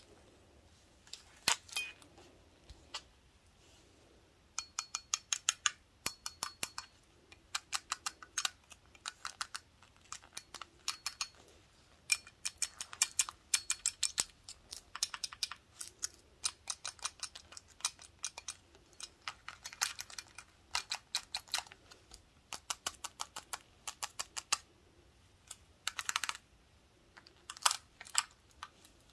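Wooden toothpicks fixed to gloved fingertips tapping rapidly on a large glass beer stein: quick runs of light clicks, some leaving a brief high glassy ring.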